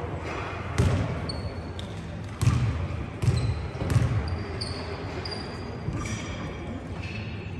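A basketball bouncing on a sports hall's wooden court floor, about five thuds at uneven intervals, with a few short high squeaks between them.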